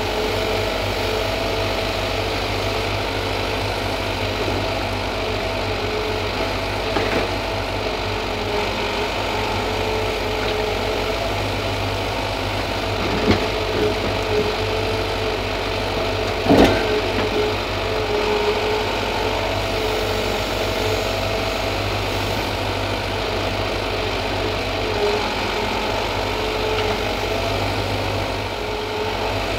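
Ponsse Elk forwarder's diesel engine running steadily under crane work, with a steady whine over it. Two sharp knocks, a little before and a little after the middle, as logs are knocked down onto the load.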